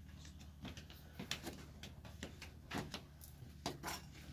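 Scattered light knocks and clicks, about eight in all, from people walking in and handling metal cookware, over a faint steady low hum.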